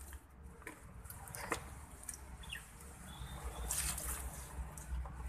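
Quiet outdoor garden ambience: a low rumble on the microphone, a few brief rustles as leaves brush past the phone, the largest a little under four seconds in, and a couple of faint short chirps near the middle.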